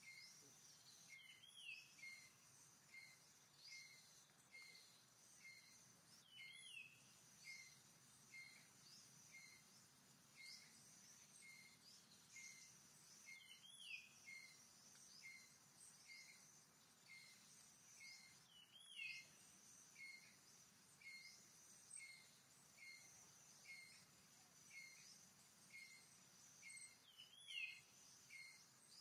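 Faint forest ambience: a bird repeating a short high chirp about three times every two seconds, with a louder falling call every several seconds, over a steady high insect drone.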